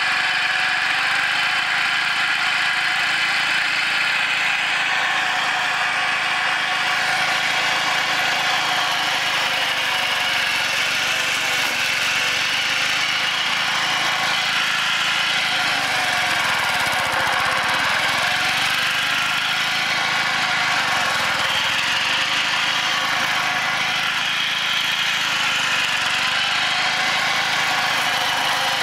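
Small gasoline engine of a Mott hammer knife flail mower running steadily under load while the mower cuts tall grass.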